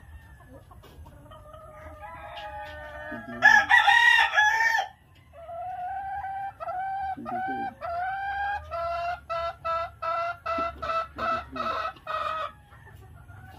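Chickens calling: a rooster crows once, loud, about three and a half seconds in, then a run of pitched calls follows, three drawn-out ones at first, then quickening into a rapid series of short repeated notes that stops near the end.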